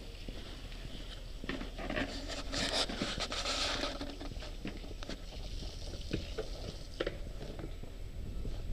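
Footsteps walking, with scattered sharp ticks about twice a second, and a brief hissing rustle about three seconds in.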